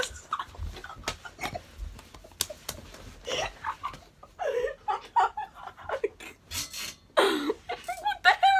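Boys laughing in short, breathy bursts and snickers, with scattered sharp knocks and smacks from scuffling.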